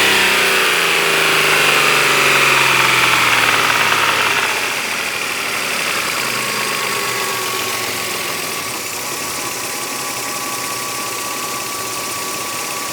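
Car engine with a knock in it, its revs falling back after a rev over the first four seconds or so, then idling steadily.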